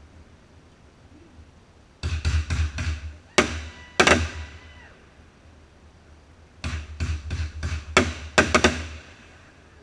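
Fireworks going off in two rapid volleys of bangs and thumps. The first starts about two seconds in and ends with two louder bangs. After a pause of about two seconds a second volley follows, with its loudest bangs near the end.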